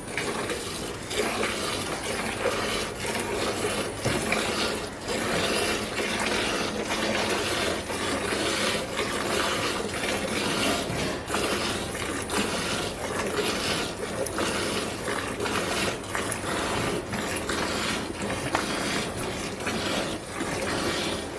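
A buffalo being milked by hand: jets of milk squirting into a pail in an even rhythm, about two squirts a second.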